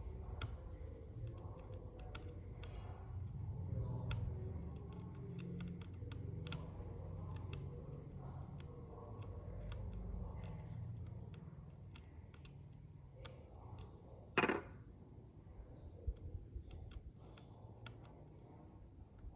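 Faint scattered clicks and light scraping of a small metal tool picking at the pins of a motherboard CPU socket, straightening bent pins. One louder short scrape comes about two-thirds of the way through, over a low steady room rumble.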